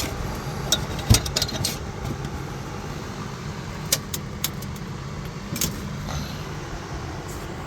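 Metal hand tools clinking and clicking against steel, a scatter of sharp taps, as a wrench and socket work on the 17 mm caliper bracket bolts, over a steady low hum.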